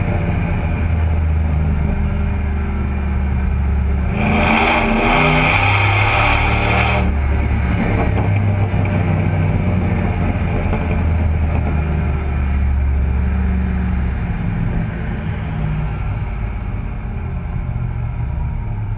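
Ford 5.4-litre V8 exhaust through a Magnaflow muffler, heard right at the tailpipe of a moving F-150: a steady deep drone. About four seconds in it rises in pitch with a few seconds of louder rushing noise as the truck accelerates, then settles back, easing off near the end.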